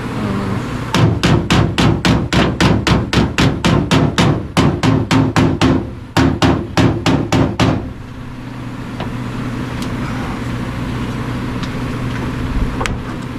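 Hammer striking metal in a quick, even run of about three to four blows a second for about seven seconds, with one short pause near the middle, during sheet-metal fabrication on a vehicle. An engine runs steadily underneath.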